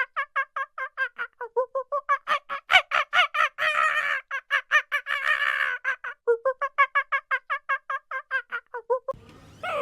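A bird calling in a long run of short, rapid, repeated notes, about five a second, which stops about nine seconds in.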